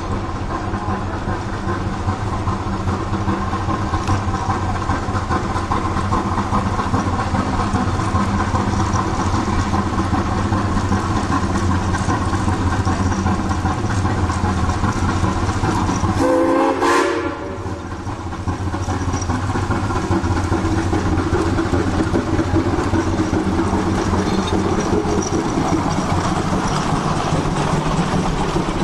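Shay geared steam locomotive No. 10, built in 1928, working along narrow-gauge track with its log cars, its running noise steady and loud. It gives a short steam whistle blast a little past halfway.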